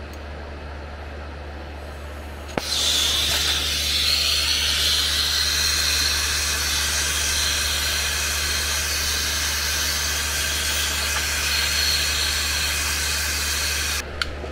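Brazing torch lit with a click about two and a half seconds in, then its flame hissing steadily while it heats the copper refrigerant line joints. The hiss stops suddenly near the end.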